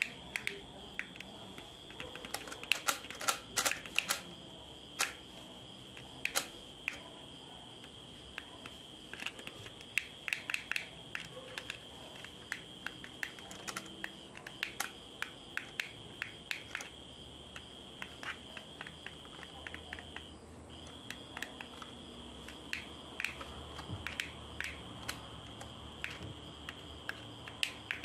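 Irregular sharp plastic clicks from a cheap miniature remote-control toy car and its handset being worked, over a faint steady high whine that breaks off briefly about twenty seconds in.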